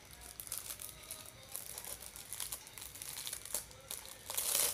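Food wrapping crinkling and rustling as it is handled and opened, in irregular crackles with a louder burst of crinkling near the end.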